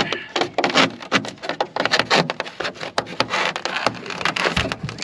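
Pink rigid foam insulation board being pushed and worked into place against a Lund jon boat's aluminum hull floor: a rapid, irregular series of rubs and scrapes of foam on metal.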